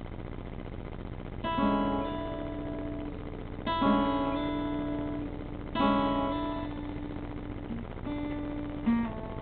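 Acoustic guitar strummed in slow chords: five strums, the first about a second and a half in, each left to ring out, as the instrumental opening of a song before the singing starts.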